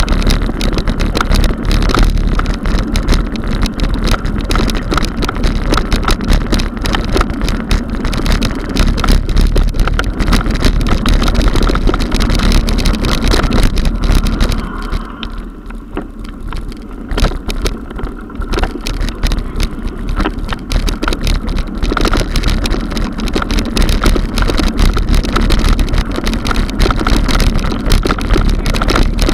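Steady rumble and rapid rattling of a mountain bike and its mounted camera rolling over stone paving, easing off for a few seconds a little past the middle.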